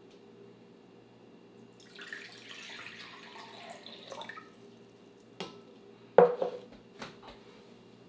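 Water poured from a plastic cup into a glass measuring jug for about two seconds, splashing as it fills. A few knocks on a wooden table follow as things are set down, the loudest about six seconds in, with a short ring.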